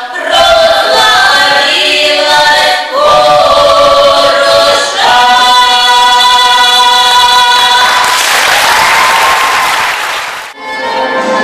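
A choir of adults and children singing together, closing on long held notes; applause rises as the song ends, and then the sound cuts abruptly to instrumental music with violin.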